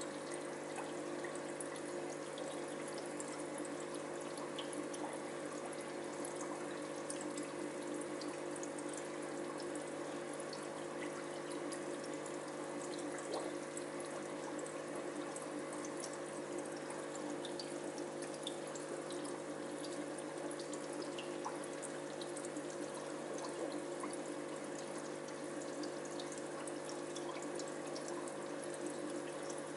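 Aquarium filter running: a steady trickle and bubbling of water with a low, even hum from its pump underneath.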